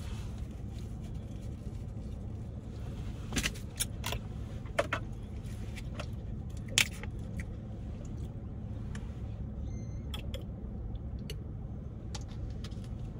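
Steady low rumble of a car idling, heard from inside the cabin, with a few short sharp crunches and clicks of eating. The loudest click comes about seven seconds in.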